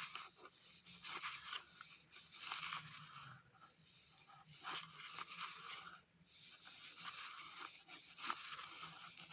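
Packet of baking soda rustling and crinkling in the hands, with irregular small crackles and scrapes as the powder is emptied and handled.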